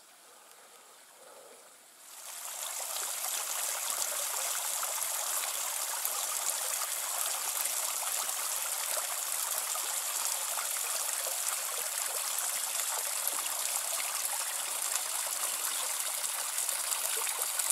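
A stream running, a steady hiss of flowing water that comes up about two seconds in after a quiet start.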